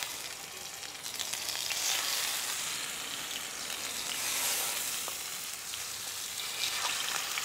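Raw chicken drumsticks sizzling in hot oil in a pan as more pieces are laid in: a steady frying hiss. The chicken is being seared to seal in its juices.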